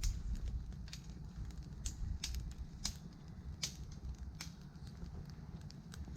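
Campfire crackling: irregular sharp pops and snaps, about one or two a second, over a steady low rumble.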